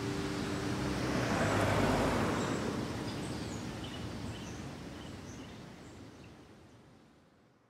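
Outdoor ambience: a soft, even rushing noise that swells about two seconds in, with faint, sparse bird chirps over it, fading out to silence near the end.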